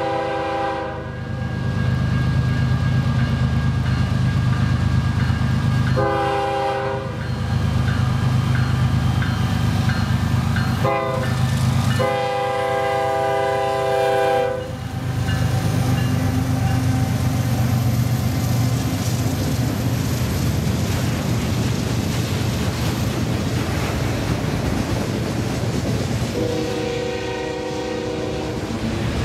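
Union Pacific freight locomotive horn sounding the grade-crossing signal over the heavy rumble of the passing locomotives. A long blast ends about a second in, then another long, a short and a final long blast. After the locomotives pass, the autorack cars roll by with a steady rail clatter, and one more horn blast sounds near the end.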